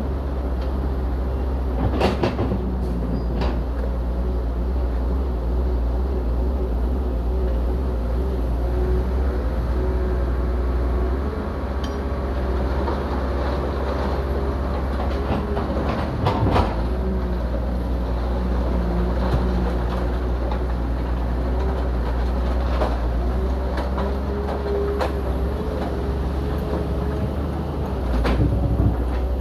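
Heavy diesel earthmoving machinery running steadily under load, a deep engine drone with a wavering whine over it. A few sharp knocks come about 2 seconds in, around the middle and near the end, as rock is handled.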